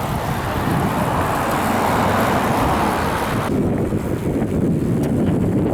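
Steady road and traffic noise with wind rumbling on the microphone while moving. A hissing layer over it cuts off abruptly about three and a half seconds in.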